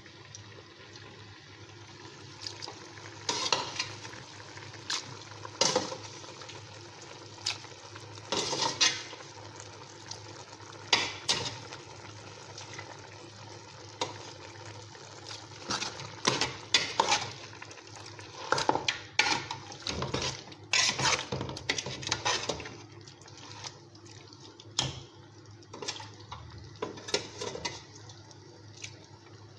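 A metal spoon stirring and turning meat in a stainless steel pot, with irregular clinks and scrapes against the pot, some in quick clusters.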